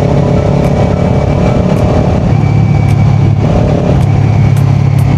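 Kawasaki Ninja 400 parallel-twin engine with a Yoshimura exhaust running steadily under way, its note shifting slightly about two seconds in.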